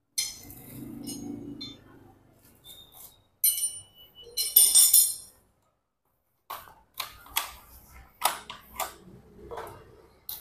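Metal wrenches clinking and rattling against each other as they are picked up and handled: sharp metallic clicks with a bright jingle, coming in bunches, with a dead-silent break of about a second in the middle.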